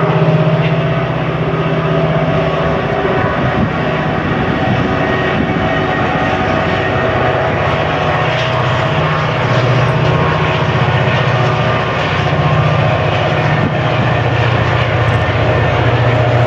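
Two six-axle diesel-electric freight locomotives, a CP Rail EMD SD40-2 leading an Iowa, Chicago & Eastern unit, working under load as they haul a train of autoracks past. Their engines give a loud, steady, evenly pulsing low drone.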